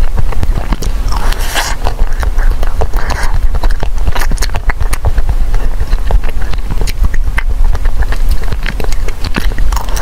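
Close-miked eating of a frozen ice cream bar: many sharp clicks of biting and chewing, with a few longer, louder mouth sounds about a second and a half in, three seconds in, and at the end. A steady low hum runs underneath.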